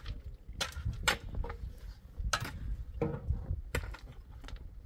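Scattered sharp knocks and clinks of stones, blocks and hand tools being handled while a low block-and-stone wall is built, about six or seven in all, the loudest a little over two seconds in.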